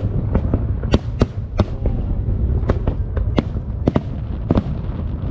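Fireworks going off in rapid, irregular succession: a dozen or more sharp bangs and cracks over a continuous low rumble of distant explosions.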